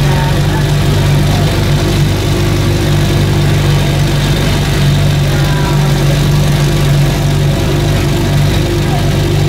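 Boat engine running steadily at low parade speed, a constant low hum.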